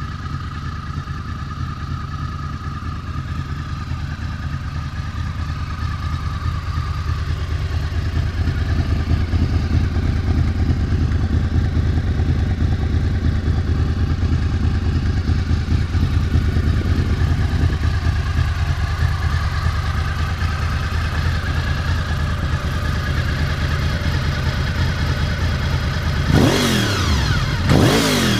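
1998 Honda VFR800's V4 engine idling steadily through a slip-on exhaust, then two quick throttle blips near the end, each rising sharply and dropping back.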